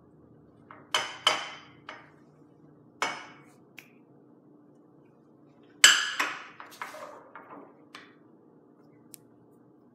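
A ceramic plate and cups clinking and knocking against each other and on a stone countertop: a scattering of separate sharp clinks, two close together about a second in and the loudest about six seconds in.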